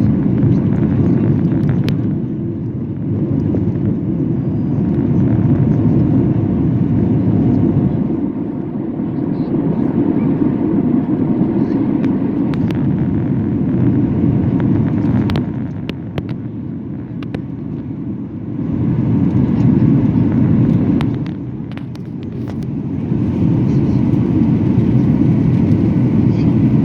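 Airliner cabin noise: the jet engines and rushing air make a loud, steady low rumble, easing a little a few times and building again, with a few light rattles.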